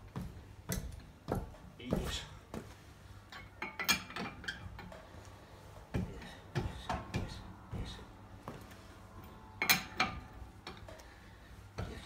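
Metal clinks and knocks of a car's stock lug wrench on the wheel nuts as it is fitted and pushed round by foot to break the nuts loose. The clicks come irregularly throughout, the loudest just under ten seconds in.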